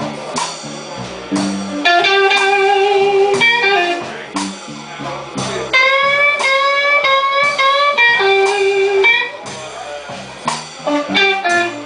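Electric guitar playing a slow blues lead over a live band, with long held, bent notes that waver in pitch.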